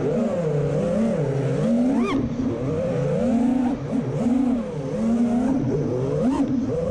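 FPV freestyle quadcopter's brushless motors whining, the pitch swinging up and down with the throttle. There is a sharp rising punch about two seconds in and another near the end.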